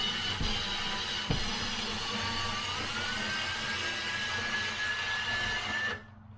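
A motor running with a steady hiss and a faint whine that rises in pitch about two and a half seconds in, cutting off abruptly near the end.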